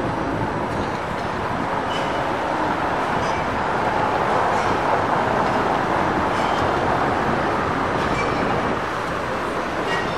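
Steady rumble of a passing vehicle, swelling about halfway through and easing off near the end.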